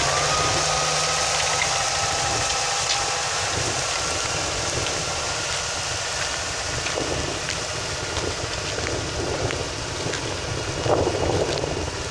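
New Holland T7.170 tractor's diesel engine running steadily under load as it pulls a stubble cultivator through wheat stubble, growing slightly fainter as it moves away. Wind rumbles on the microphone.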